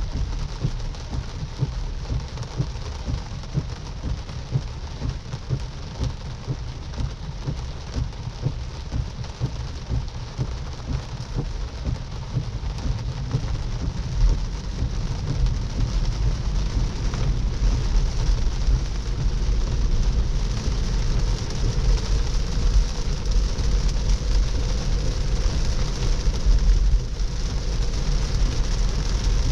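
Moderate rain pattering on a moving Tesla car, over a low rumble of tyres on wet road. The rumble grows louder about halfway through.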